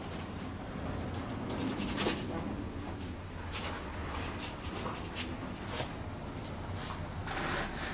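Stiff bristle brush dabbing and dragging thick oil paint across canvas: a series of short scratchy strokes, the loudest about two seconds in and near the end, over a low steady hum.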